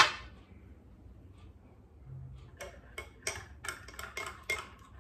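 Ice cubes clinking against the inside of a glass mug of iced coffee as it is stirred with a straw: a quick run of light clicks, several a second, through the second half. A single sharp clink right at the start.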